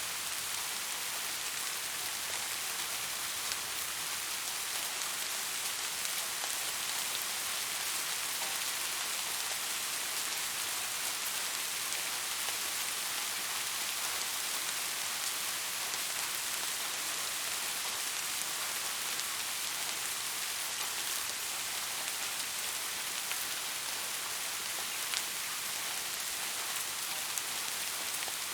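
Steady rain falling on hard surfaces: an even hiss with scattered drop ticks.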